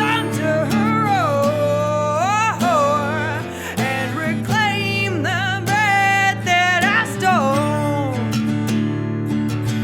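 Live acoustic song: a singer holds long, wavering sung notes over a steadily strummed acoustic guitar. The voice drops out about eight seconds in, leaving the guitar playing on.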